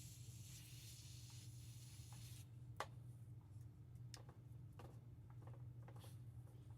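Near silence: steady low room hum, with a faint hiss that stops about two and a half seconds in, then a few faint, scattered clicks, the clearest about three seconds in.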